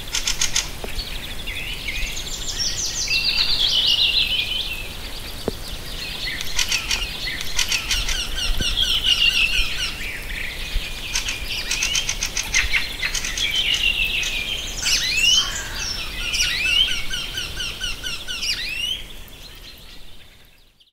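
Songbirds singing and chirping together, many rapid trills and short gliding whistles overlapping, fading out near the end.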